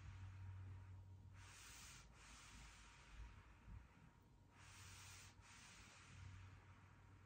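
Faint swishing of plastic glider discs sliding on carpet under the hands, twice, about three seconds apart, over a faint steady low hum.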